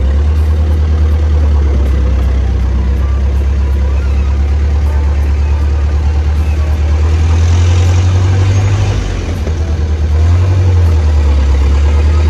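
Vehicle engine and road rumble heard from inside the cabin: a loud, steady low drone that eases off briefly about nine seconds in, then comes back.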